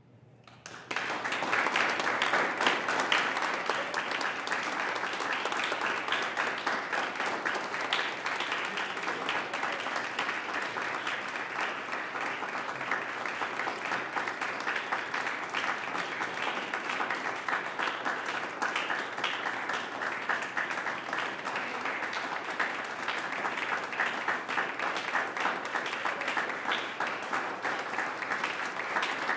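Audience applauding, starting suddenly about a second in and carrying on steadily.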